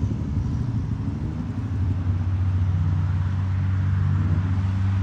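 Scania truck engine running through an aftermarket chrome exhaust, its deep steady note swelling louder about two seconds in and then holding as the truck picks up speed.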